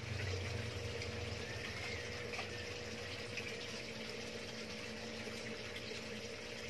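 Aquarium filter pumps running: a steady low hum with water trickling and splashing continuously.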